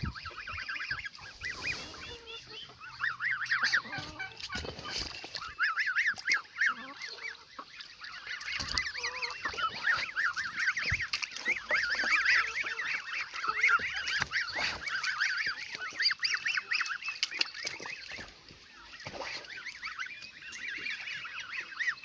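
A flock of domestic geese calling almost without a break: many quick, short, high notes that overlap into a chattering chorus.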